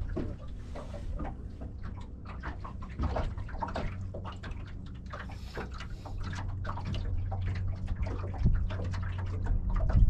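Small waves lapping and slapping irregularly against the fishing boat's hull, over a low steady hum.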